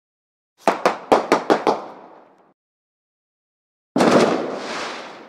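Fireworks: a quick string of six sharp bangs about a fifth of a second apart, each ringing out briefly, then after a gap of about a second and a half a single bang that trails off in a noisy crackle.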